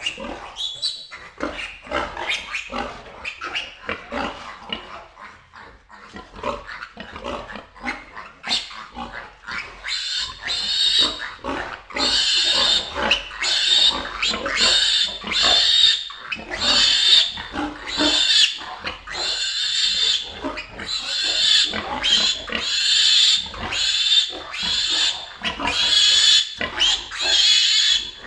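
Pigs grunting and squealing in short irregular calls. From about ten seconds in, louder, shrill squealing takes over and keeps repeating.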